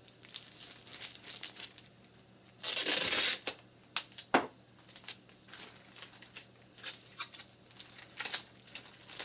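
Plastic zip-top bag crinkling as it is handled and folded, with a loud rip of tape being pulled off the roll about three seconds in, followed by a few sharp snaps.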